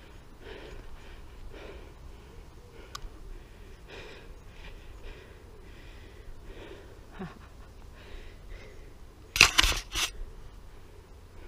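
A hand knocking and rubbing against a helmet-mounted GoPro camera: a short loud cluster of knocks and scraping about a second and a half before the end. Before it there are faint short noises about once a second.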